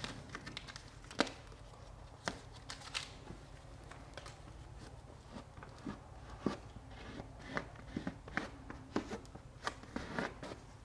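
Paper release liner crinkling as it is peeled off a self-adhesive pipe grommet, then the tape patch being rubbed and pressed down onto the airtight membrane. The handling gives scattered crackles and soft taps over a steady low hum.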